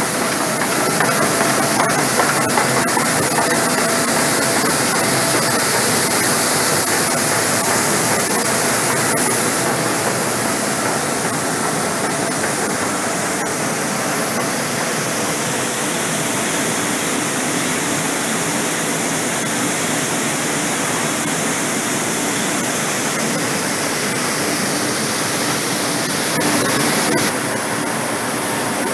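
Grain dryer and grain-handling plant running: a steady rushing noise from its fans and conveying machinery, with a few faint steady whines.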